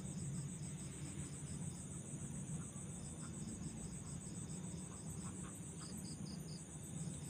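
Crickets or similar insects calling: a fast, steady pulsing trill high up at about eight pulses a second, with a second, lower pulsing call that drops in and out, over a low steady hum.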